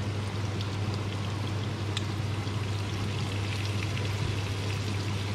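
Chopped onion and garlic sizzling and crackling in hot oil in a frying pan, over the steady low hum of a kitchen extractor hood fan.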